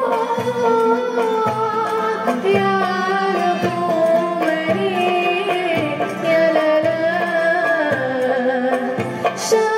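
A woman singing a melody with a traditional ensemble of ouds, mandolins and guitars with bowed strings, over a steady pulse about once a second.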